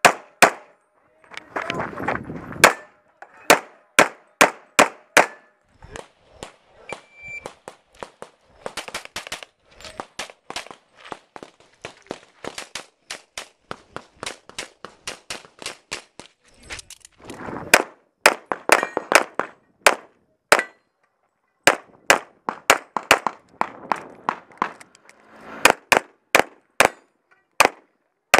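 Semi-automatic pistol firing rapid strings of shots, many in quick pairs, with brief pauses between strings.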